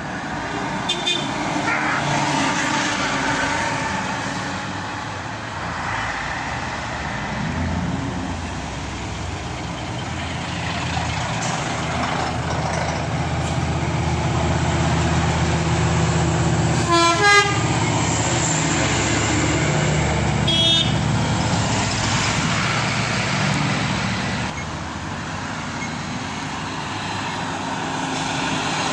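A procession of lorries and a coach driving past one after another, their diesel engines running. Horn toots sound about two thirds of the way through.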